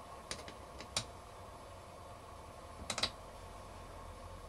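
A few light clicks and taps from compressor cylinder-head parts and a bolt being handled and fitted by hand: a couple near the start, one about a second in and a short cluster around three seconds in.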